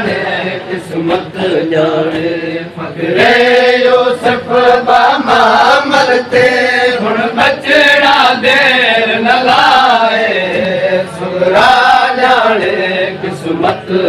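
Men chanting a noha, a Shia lamentation dirge, a lead voice with the crowd joining in chorus, with sharp slaps of chest-beating (matam) breaking in again and again.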